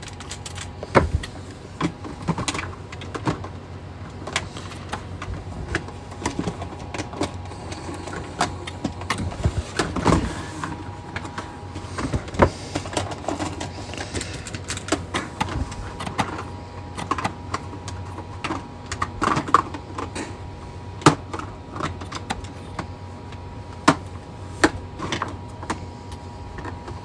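Irregular clicks, taps and rattles of AA batteries and a plastic smoke alarm being handled while batteries are fitted into its battery compartment. A faint steady whine runs underneath.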